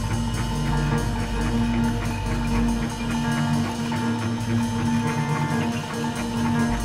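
Live improvised jazz from a piano, double bass and drums trio: held, repeating piano tones over light, busy percussion. The low bass drops out about halfway through and comes back at the end.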